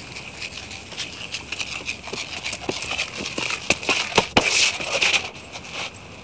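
A run of irregular sharp clicks and knocks that come thicker and louder toward the middle, with a short hissing rush about four seconds in that stops just before the end.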